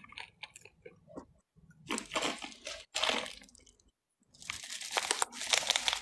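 Crunchy chewing close to the microphone, in crackly bursts: a short one about two seconds in, another at three seconds, and the longest and loudest over the last second and a half.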